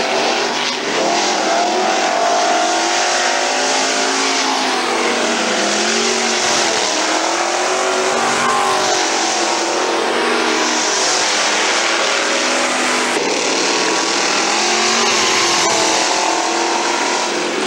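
Street stock race cars' engines running hard at speed on a dirt oval, several engines overlapping, their pitch rising and falling as the cars pass and go through the turns.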